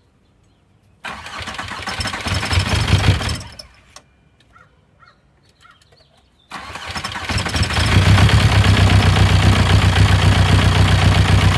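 Four-cylinder diesel engine of a VW Passat cranked twice: it turns over and fires for about two seconds and stops, then on the second try it catches and keeps running loud and steady. It is running on fewer than all four cylinders, because a loose injector line is spraying fuel while the fuel system is being bled of air.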